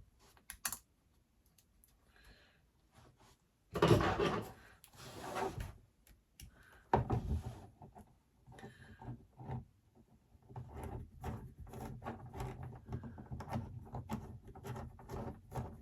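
Hand-handling noises from parts and wiring on a workbench: scattered clicks and light knocks, a louder stretch of rubbing about four seconds in, and busier rubbing and tapping over the last five seconds.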